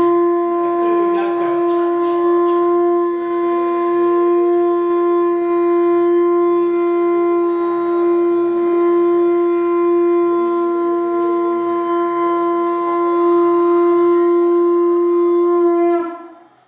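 Hindu temple conch shell (shankha) blown in one long, steady, unwavering note that stops shortly before the end.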